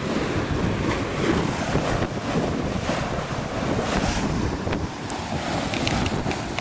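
Wind buffeting the microphone on a sailboat under way, over the rush of sea water along the hull.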